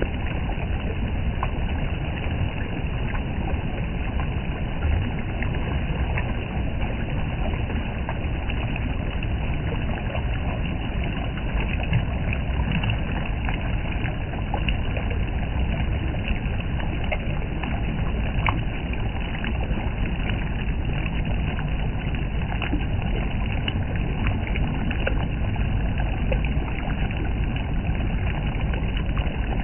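Shallow mountain river rushing over rocks close by: a steady rush of water with small splashes and trickles scattered through it.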